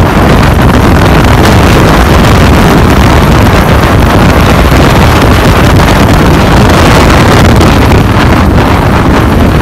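Heavy wind buffeting on the microphone of a chopper motorcycle at highway cruising speed, mixed with the steady running of the bike's engine.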